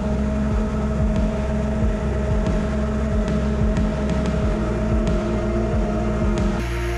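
FPV quadcopter's motors and propellers running in flight, heard from on board the quad: a steady whine over a rushing noise, with small shifts as the throttle changes.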